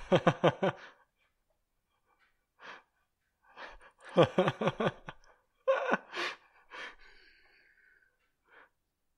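People laughing in conversation: three runs of quick, breathy ha-ha pulses, one right at the start, one about four seconds in and one about six seconds in.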